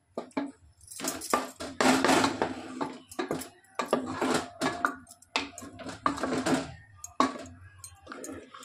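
Wooden spoon scraping and knocking against an aluminium pressure cooker while stirring a thick curry, in a string of irregular strokes with short pauses between them.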